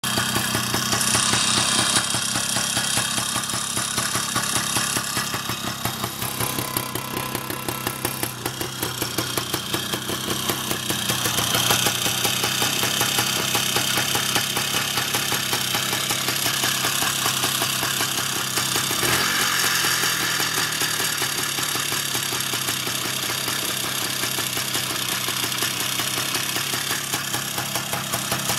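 Izh Planeta-5 motorcycle's single-cylinder two-stroke engine running at about idle, with a rapid, regular knock that the title puts down to a worn piston pin.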